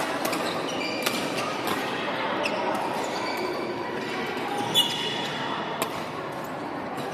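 Badminton rackets hitting a shuttlecock: a series of sharp strikes, the loudest a little before five seconds in, with short squeaks of shoes on the wooden court floor. Behind them is a steady murmur of voices echoing in a large sports hall.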